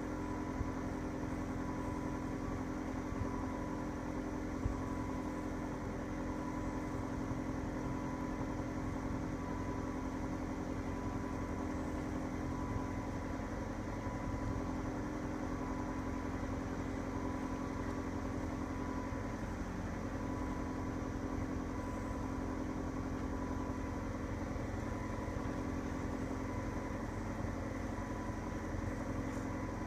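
Ford 7.3 L Power Stroke turbo-diesel V8 idling steadily.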